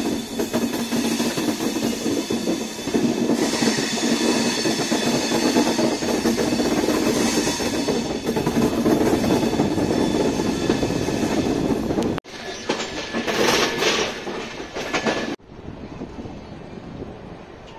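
Passenger train coaches running on the track, the rumble and rattle of wheels and bodywork heard through an open coach door. The sound breaks off abruptly twice, about twelve and fifteen seconds in, and is quieter for the last couple of seconds.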